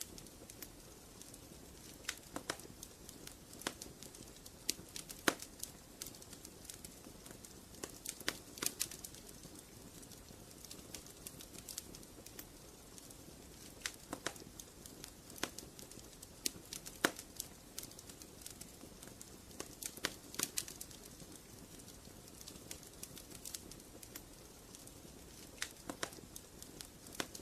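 Wood fire burning in a fireplace: a low, steady hiss of flame with irregular sharp pops and snaps from the burning logs, some coming in quick little clusters.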